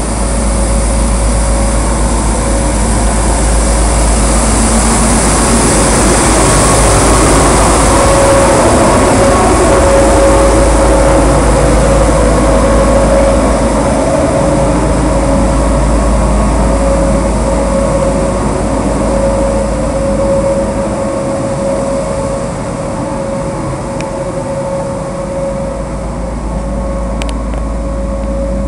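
Eurovoirie TAZ TA truck-mounted street sweeper running while sweeping along the kerb, its machinery making a loud steady noise with a steady whine through it. It is loudest as it passes close, then drops a little as it moves away.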